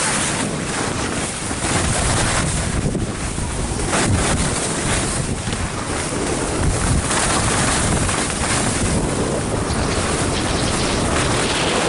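Wind rushing over the microphone of a camera carried by a downhill skier, mixed with the steady hiss and scrape of skis sliding on snow.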